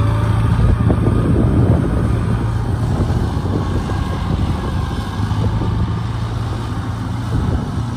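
Diesel engine of a Kubota DC-70 rice combine harvester running steadily as the machine drives across the field, its level easing slightly as it moves off.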